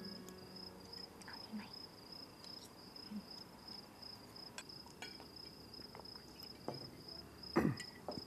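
A cricket chirring steadily in the background, with scattered light clicks and a louder knock about seven and a half seconds in.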